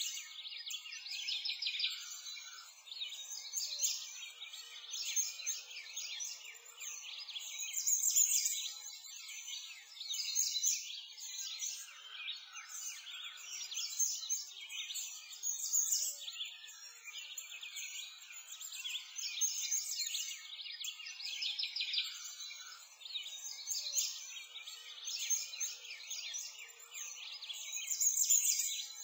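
A dense chorus of songbirds chirping and singing without a break, many overlapping high-pitched calls and trills with nothing low beneath them.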